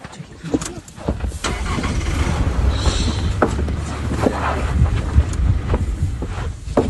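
A vehicle engine running, a steady low rumble that sets in about a second in and drops away just before the end, with knocks and clatter over it.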